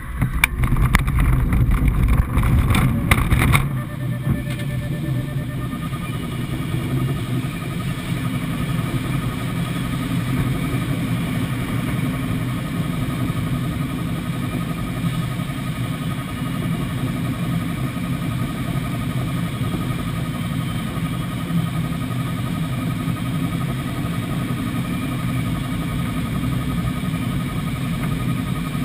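Single Astir 77 glider on a winch launch, heard from inside the cockpit. For the first few seconds there is a loud rumble and rattling as it runs along the ground. After that comes a steady rush of air over the canopy as it climbs, with a faint steady high tone above it.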